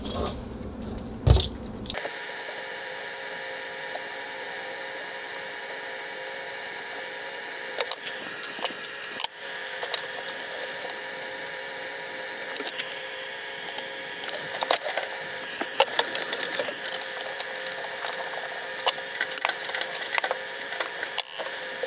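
Scattered small clicks and taps of plumbing fittings and tools being handled, over a steady hum. The clicks come in clusters about a third of the way in and again near the end.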